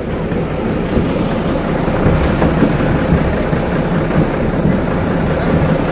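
Engine of a parade-float vehicle running steadily close by, a continuous low rumble.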